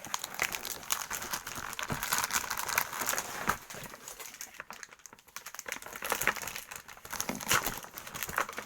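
Plastic packaging crinkling and rustling as a kit is unboxed and handled, with scattered light clicks and knocks; it eases off for a moment in the middle.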